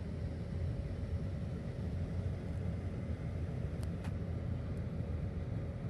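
Steady low rumble of a car's engine and tyres heard from inside the cabin while driving, with a few light clicks a little past the middle.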